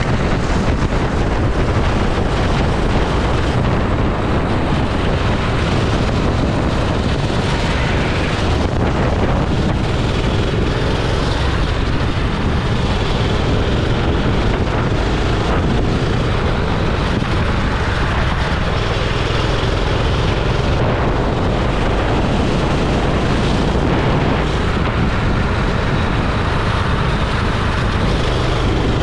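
Go-kart engine running on track, heavily masked by wind buffeting the microphone, a loud steady rush throughout.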